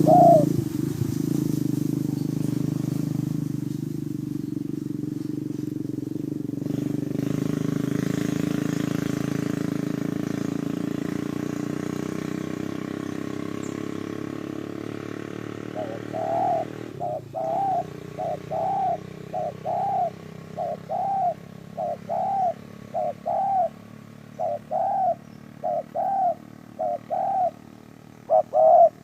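A low, steady engine hum fades away over the first half. Then a dove starts cooing: a long series of short, arched coos, about two a second in runs.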